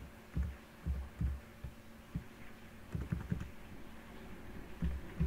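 Typing on a computer keyboard: irregular, dull keystrokes, some in quick runs.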